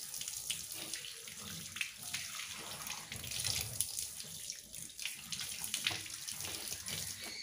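Water running from a tap and splashing into a sink, a steady hiss with irregular splashes.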